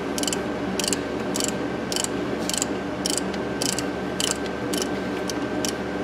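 Hand ratchet clicking in a steady rhythm, about two strokes a second, as it runs the bolt down into the crankshaft pulley (harmonic balancer) of a Ford 4.0-litre V6. The bolt is turning freely, not yet tight.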